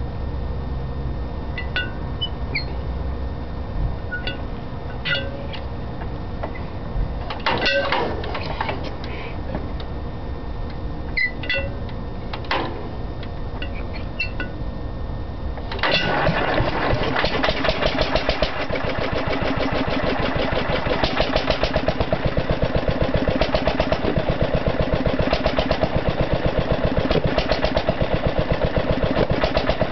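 International Harvester LB 3–5 hp stationary engine: a few scattered clicks and knocks, then the engine catches about halfway through and runs on with a rapid, even beat.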